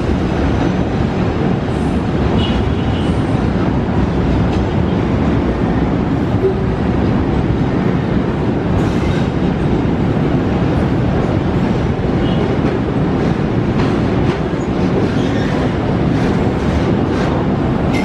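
Container freight train's wagons rolling past below, a steady rumble of wheels on rail with a few faint high wheel squeals.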